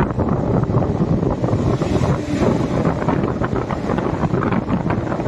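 Passenger express train running at speed, heard from on board: a steady rumble with a rapid clatter of wheels over the track, and wind buffeting the microphone.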